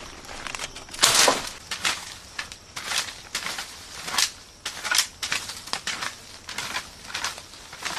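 A broom sweeping dry leaves, twigs and dirt across bare forest ground in quick, scratchy strokes, about two or three a second.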